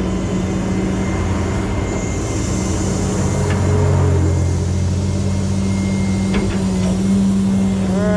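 Rollback tow truck's engine running steadily as its winch pulls a pickup up the bed, with a steady low hum. A deeper drone swells from about three seconds in and fades near the end.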